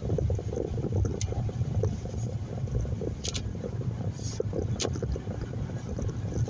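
Steady road and engine rumble inside a moving car, with a few short swishing clicks scattered through it.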